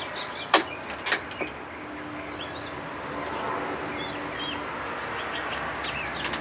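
Wood fire burning in a small camp stove with a steady rush of wind, and three sharp pops in the first second and a half, the first the loudest.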